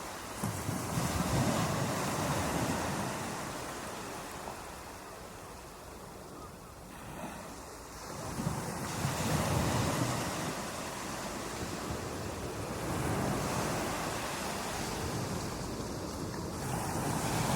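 Ocean waves breaking on a beach: a steady rush of surf that swells as a wave crashes about a second in, again around nine seconds in and near the end, easing off between breakers.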